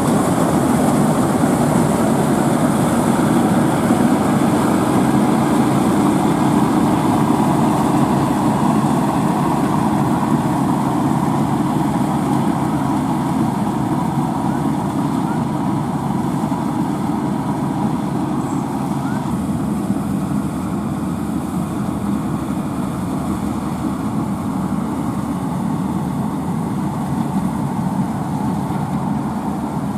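Diesel engines of farm machinery, a rice harvester and tractor at work, running steadily and fading slightly as they go on.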